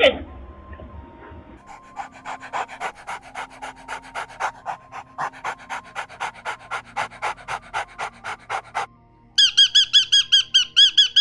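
A dog panting rapidly, an even run of short breaths about four a second. Near the end a high, squeaky call starts, repeating about three times a second.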